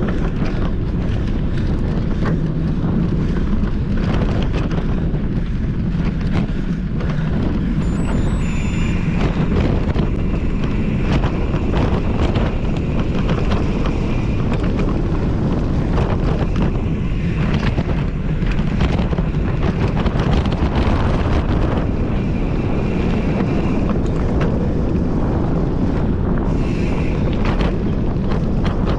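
Wind rushing loudly over the microphone on a mountain bike ridden through a cross-country race course, with frequent short knocks and rattles as the bike runs over the trail. A faint high whine comes and goes several times.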